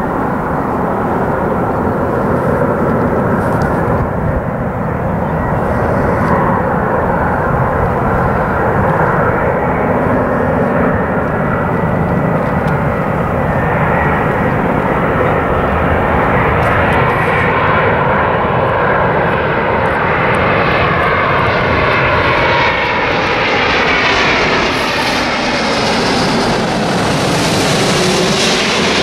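Twin-engine jet airliner on landing approach with gear down, its engines running loud and steady as it comes in low. Near the end it passes close overhead and the engine whine slides down in pitch.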